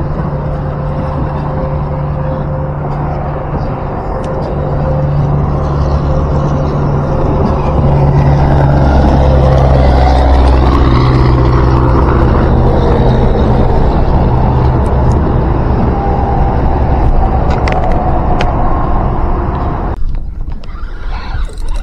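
Boat's outboard motor running with wind and water noise, getting louder about a quarter of the way in as the boat gets under way. Near the end it cuts off abruptly to a quieter stretch with a few small clicks.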